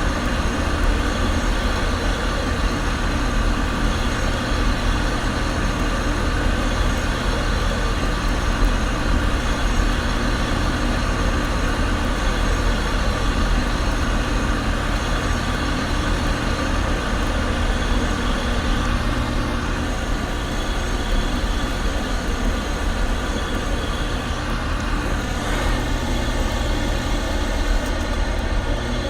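2013 Payne PH13 heat pump running: the scroll compressor and outdoor fan give a steady hum with several held tones. About 25 seconds in, the tones shift slightly.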